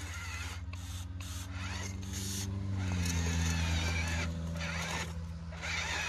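Small electric motors and gearboxes of radio-controlled toy construction machines running under load, a steady whine whose pitch steps down about three seconds in, with intermittent scratchy noise over it.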